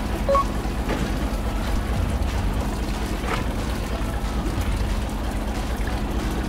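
Fishing boat's engine running steadily, a low drone.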